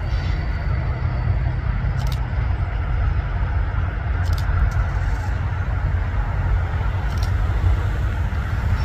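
EMD SD70M diesel locomotive leading a train of empty covered hoppers, a steady low rumble that grows slightly louder as it approaches, with a few short high clicks.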